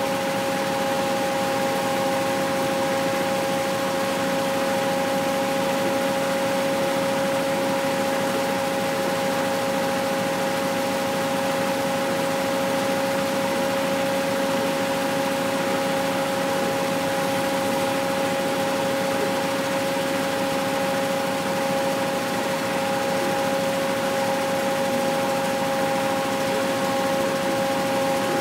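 Twin-spindle abaca decorticating machine running steadily, a constant mechanical hum with two steady tones over a broad rushing noise, as abaca stalks are pulled through its spinning spindles to strip out the fiber.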